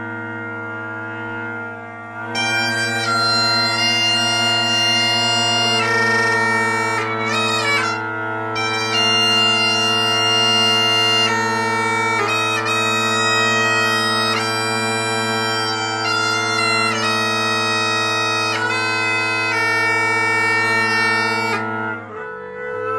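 Highland bagpipes played live: the drones hold a steady low tone, and the chanter melody comes in about two seconds in and plays on until the pipes stop just before the end.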